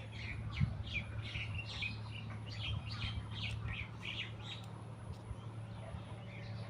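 Small birds chirping in quick succession, short high chirps several a second that thin out after about four and a half seconds, over a steady low hum.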